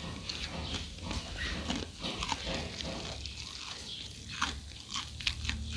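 A person chewing crispy fried rice crackers (bay kdaing), with irregular crackly crunches, thickest near the end.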